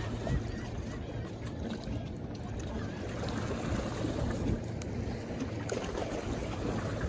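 Waves washing along the rocks with wind buffeting the microphone: a steady rushing noise with a low rumble.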